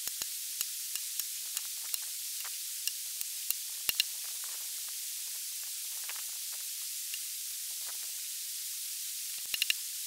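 Axe striking a log in short chops. Sharp knocks come about every half second through the first few seconds, there is a quieter stretch with faint scraping in the middle, and a quick run of knocks comes near the end, all over a steady hiss.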